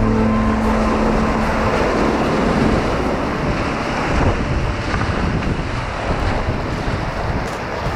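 Rushing river whitewater with wind buffeting the microphone: a dense, steady wash of noise.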